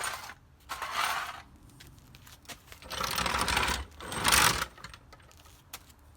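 A jack being pushed and positioned across the floor, its metal parts clattering and scraping in four bursts. The two longest and loudest come about three to four and a half seconds in.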